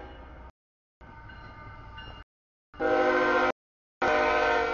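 CSX freight locomotive's air horn blowing for a grade crossing as the train arrives. A blast fades out near the start, then come a short loud blast and a longer one, with the sound cutting out completely between them.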